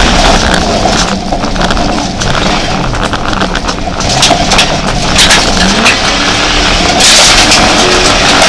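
Jeep Grand Cherokee rally 4x4 heard from inside the cabin, driven hard on a dirt stage: the engine revs rise and fall, with many short knocks from stones and ruts hitting the body, and a louder rush of noise about seven seconds in.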